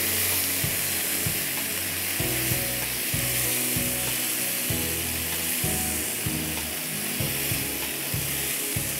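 Boiled peas, carrots and cauliflower sizzling in oil and coconut cream in a frying pan, stirred with a silicone spatula that knocks and scrapes against the pan now and then.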